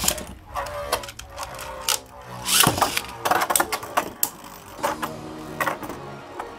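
Beyblade Burst Turbo spinning tops (Brutal Luinor and Nightmare Luinor) whirring in a plastic Beyblade stadium, with sharp clacks as they hit each other and the stadium walls, several in quick succession around the middle.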